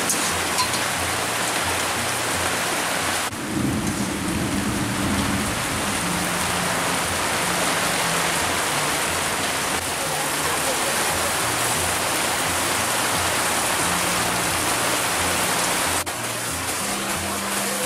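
Heavy rain falling steadily, with a rumble of thunder about three and a half to five and a half seconds in.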